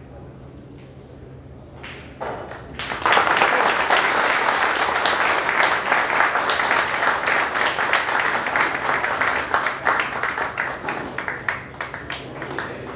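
A few sharp clicks of carom billiard balls striking, then audience applause that breaks out about three seconds in and thins to scattered claps near the end.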